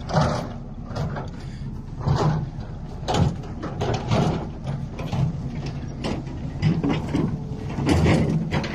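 Excavator's diesel engine running steadily at a low pitch, with irregular metallic knocks and clanks about once a second.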